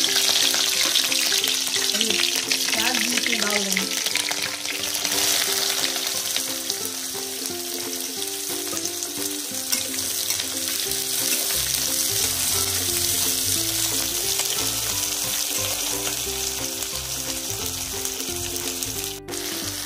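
Sliced onions and green chillies sizzling in hot oil with cumin seeds in a kadhai, stirred with a flat steel spatula: the start of frying the onions. The sizzle is loudest in the first few seconds and then settles to a steadier frying hiss.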